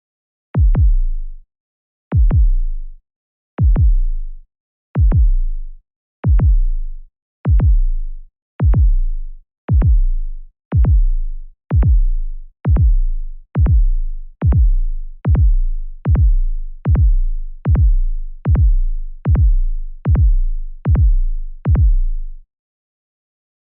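Suspense sound effect: a series of deep electronic booms, each dropping quickly in pitch into a low rumble, that speed up steadily from about one every second and a half to more than one a second, then stop.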